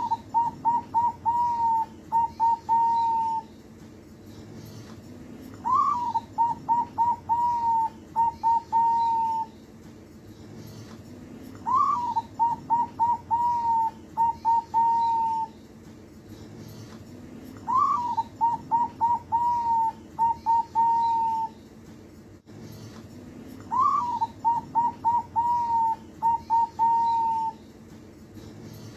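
Young zebra dove (perkutut), about two months old, cooing its song five times, about six seconds apart. Each phrase opens with a rising note, runs into a string of short quick coos, and ends on a few longer held coos.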